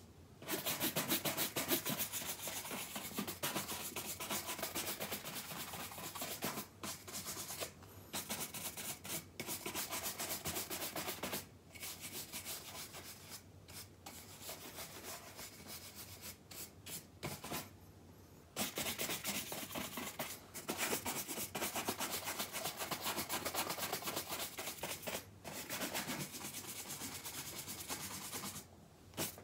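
Horsehair shoe brush brushed in rapid back-and-forth strokes over leather shoes, a steady brisk rubbing broken by brief pauses every few seconds.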